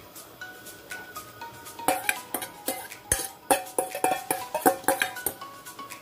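Metal bowl clanking against a stainless steel cooking pan as crayfish is tipped in: a quick run of sharp clinks and knocks with a short metallic ring, starting about two seconds in and stopping about five seconds in.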